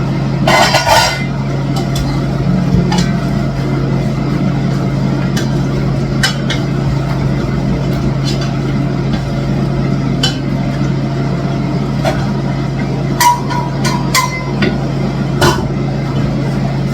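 Steady low hum and rumble from the cooking setup, with a handful of sharp clinks of a utensil against a pot scattered through.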